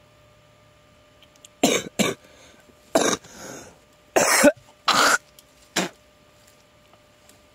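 A man coughing and clearing his throat: a fit of about six short, loud coughs over some four seconds.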